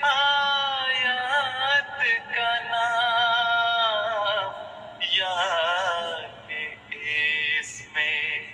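A solo voice sings the long, wavering held notes of a hamd, a devotional poem praising God.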